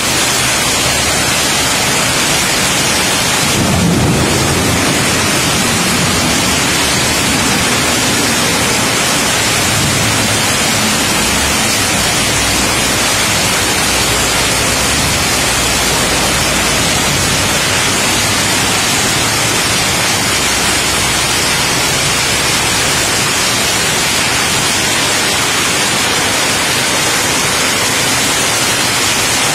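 Heavy rain pouring down steadily, a dense even hiss. A low rumble swells briefly about four seconds in.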